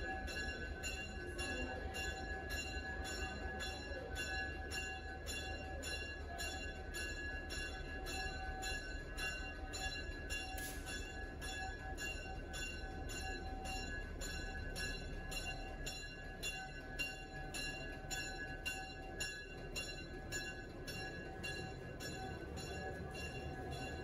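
Diesel locomotive's bell ringing steadily, struck a little under twice a second, as the locomotive pulls slowly into the station, with the low rumble of its engine underneath.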